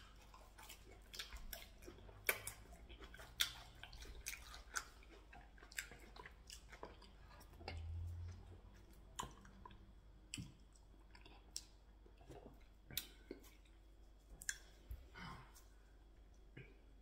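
Faint, close-up eating sounds of pounded yam with ogbono soup eaten by hand: soft chewing with scattered short wet clicks and smacks, about one every second or so.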